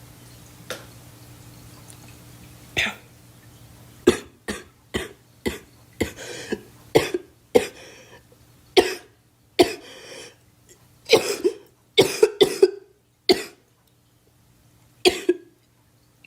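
A girl coughing in a fit: one cough, then a long run of about twenty short, sharp coughs coming roughly every half second, some in quick clusters and some with a breathy tail, with a last single cough near the end.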